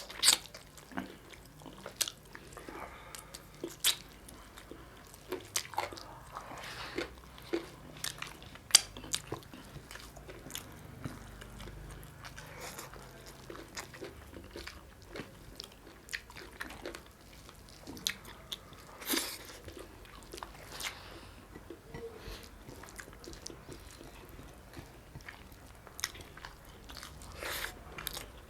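A person chewing and biting food close to the microphone: wet chewing with irregular sharp crunches and clicks scattered throughout, as chicken and naan are eaten.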